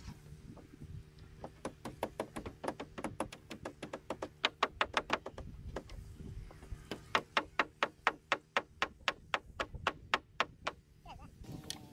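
Hammer driving nails into a pine stud frame: two runs of quick, sharp blows at about four a second, with a short pause between them.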